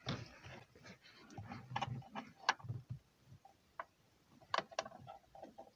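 Open-end wrench scraping and clicking on the handbrake adjuster's nut and locknut on a threaded rod while the locknut is loosened, with a few sharp metallic clicks, the loudest about two and a half seconds in and a pair near the end.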